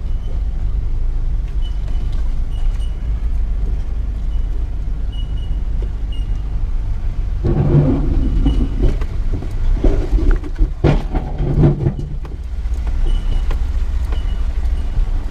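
Mitsubishi Triton 4x4 ute creeping along off-road, its engine a steady low rumble in the cab. About halfway through, the engine works harder and a run of loud scrapes and knocks comes from underneath for about four seconds: the tow bar grounding out.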